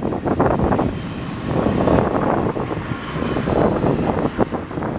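Double-stack intermodal freight train of container well cars rolling past, its steel wheels rumbling and clattering on the rails. A thin high wheel squeal rides over it from about a second in until near the end.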